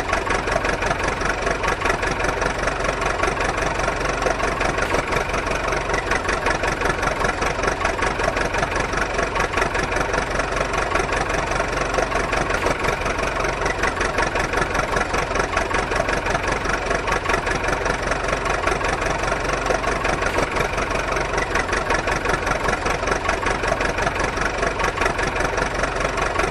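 An engine idling steadily with a fast, even chugging that does not change in speed.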